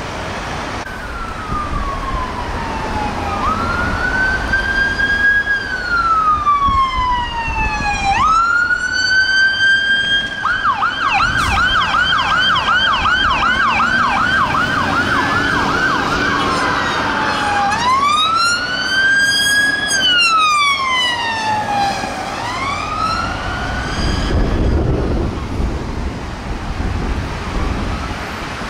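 Fire engine's electronic siren going past: a slow rising-and-falling wail, switched to a rapid yelp for about six seconds in the middle, then back to the wail before it fades away. Engine and traffic noise run underneath.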